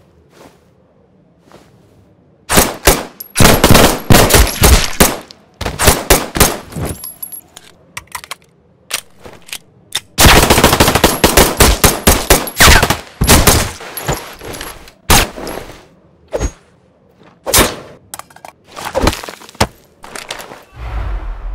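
Gunfire sound effects: several bursts of rapid automatic fire, the longest lasting about three seconds around the middle, then single shots and short bursts spaced out toward the end.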